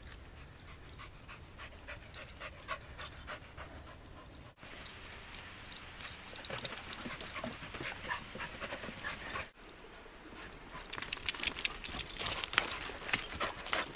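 Dogs panting, with many short clicks and rustles that get busier after about eleven seconds.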